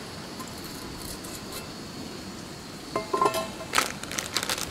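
Steady hiss of a canister gas camp stove heating a pot of water, under a thin high steady insect drone. About three seconds in, a metal clink that rings briefly as the stainless pot or its lid is handled, then the crackle of a plastic food packet being picked up.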